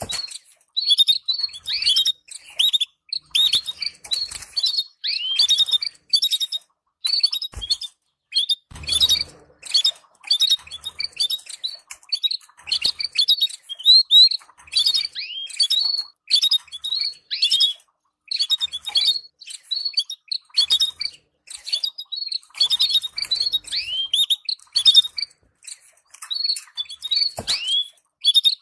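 Canaries twittering: quick bursts of short chirps and down-slurred notes, the stimulating call used to bring canary pairs into breeding condition. There is a brief rustle about nine seconds in.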